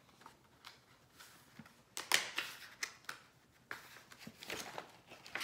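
Paper pages of a large picture book rustling and flapping as they are turned and handled, with a sharp crackle about two seconds in and a longer run of rustling a little before four seconds.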